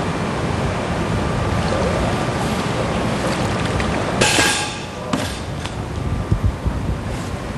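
Killer whale exhaling through its blowhole as it surfaces at the pool edge: one short, loud whoosh about four seconds in, with a smaller one about a second later. Underneath is a steady noise of wind and water.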